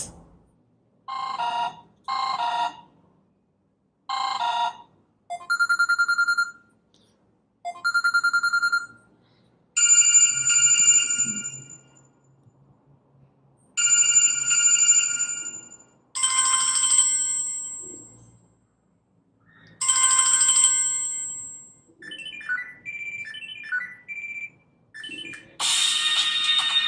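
Samsung Galaxy Ace 2's built-in ringtones previewed one after another: about ten short electronic chimes and jingles, each a second or two long with brief silences between, then a longer musical ringtone that starts near the end and keeps playing.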